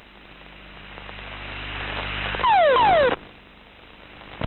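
Rush of air swelling steadily louder during an aircraft ejection, then a louder burst of about half a second with two quick falling whistle-like tones that cuts off abruptly. A single sharp click comes near the end.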